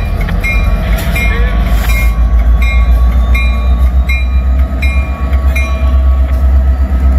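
Union Pacific diesel locomotives rumble past at low speed, their engines making a heavy, steady low drone. Over it, a grade-crossing signal bell dings evenly, about one and a half strikes a second.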